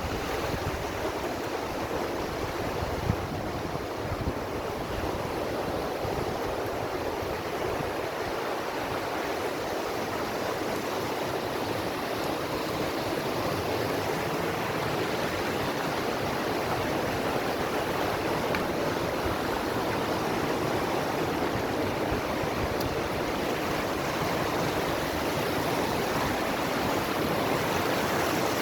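River water flowing, a steady rush.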